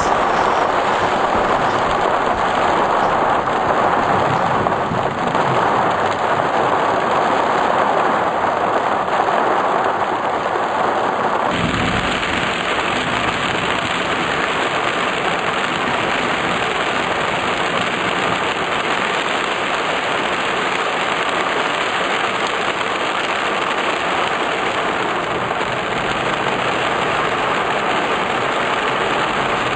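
Steady heavy rain pouring down during a thunderstorm, with a sudden change in the sound of the downpour about eleven seconds in.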